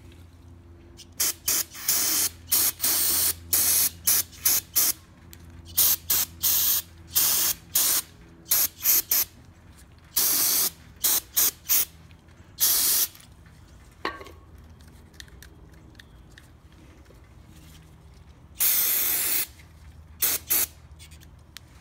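Aerosol carburetor cleaner sprayed in a long series of short hissing bursts onto a Briggs & Stratton 140cc OHV lawnmower carburetor, washing the grime off its outside, with one longer burst of about a second near the end.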